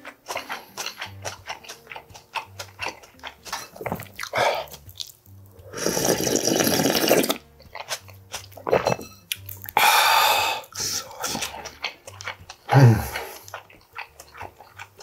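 Close-miked eating of samgyetang: wet chewing and mouth clicks throughout, with two long slurps of broth from a brass bowl about six and ten seconds in, and a short low gulp near the end. Faint background music underneath.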